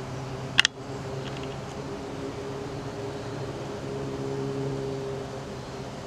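A steady low mechanical hum, like a motor or fan running, with a single sharp click about half a second in.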